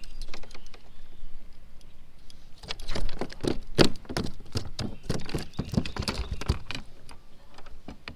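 A just-landed smallmouth bass thrashing and being handled, making a rapid, irregular run of knocks and taps against the kayak for about four seconds, starting a few seconds in.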